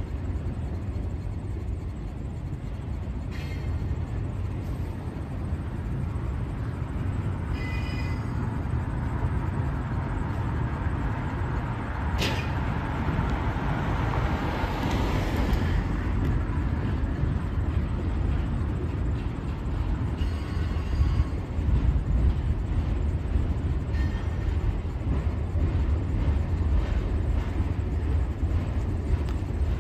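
Double-stack intermodal freight cars rolling slowly over a steel girder bridge: a steady low rumble of wheels on rail, with a few brief high squeals and one sharp clank about twelve seconds in.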